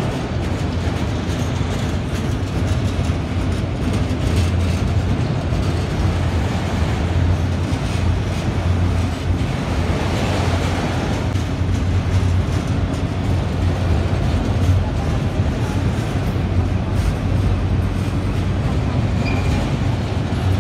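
Freight train of enclosed autorack cars rolling past: a steady rumble of steel wheels on the rails, with faint scattered clicks.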